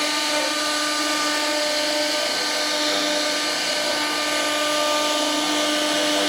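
CNC router spindle running and cutting wood: a steady high whine over a constant hiss.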